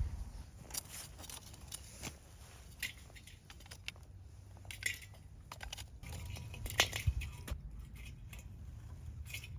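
Irregular crinkling and clicking of something being handled, over a low wind rumble on the microphone that swells about two thirds of the way through.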